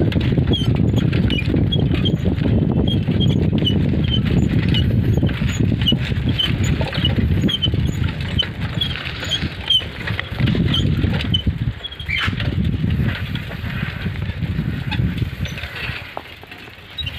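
Wind buffeting the microphone and low rumble from riding a bicycle along a concrete road, easing off near the end. Over it a small high squeak repeats about twice a second for the first twelve seconds or so, with a few sharp clicks after.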